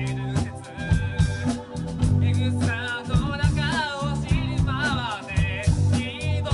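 Live band playing an upbeat rock song: a lead vocal sung over electric guitar, bass and drums, with regular drum hits throughout.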